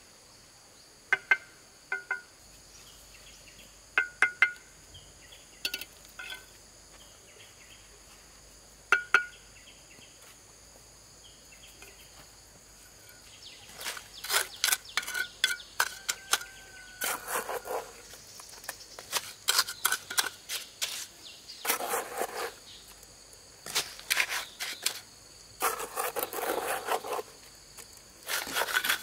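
Stonework with mud mortar: a few sharp clinks and knocks of stone and trowel, then from about halfway repeated scraping and slapping of mortar with the trowel among more knocks of stone. Insects chirr steadily in the background.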